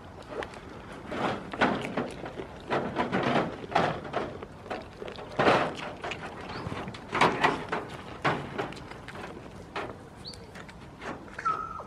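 Irregular close-up rustling, crunching and knocking noises, with a brief high chirp just before the end.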